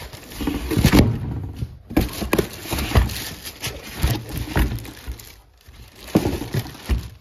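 Packaging being handled: plastic wrap rustling and foam packing inserts rubbing against a cardboard box as a boxed subwoofer is unpacked, with irregular knocks and thuds about once a second.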